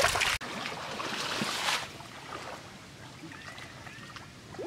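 Pond water splashing and lapping around people wading chest-deep. The water noise is louder for the first couple of seconds, then drops to a soft swish.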